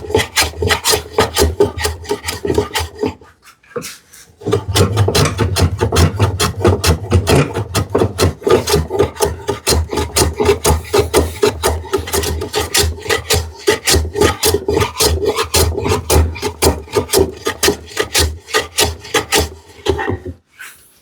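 A hand tool cutting into a curved sapele drawer front in quick, short, even scraping strokes, about three or four a second, pausing briefly about four seconds in and then carrying on.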